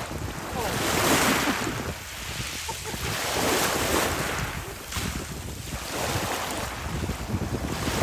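Small sea waves washing in over a pebble shore in the shallows, surging and falling back about every two to three seconds, with wind rumbling on the microphone.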